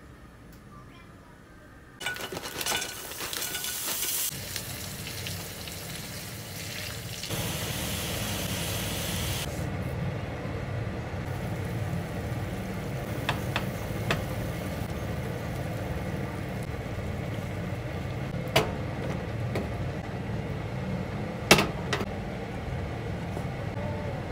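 Food sizzling in a frying pan. The hiss is strongest for the first several seconds and drops away suddenly, followed by a steadier low sizzle with a few sharp clicks and knocks.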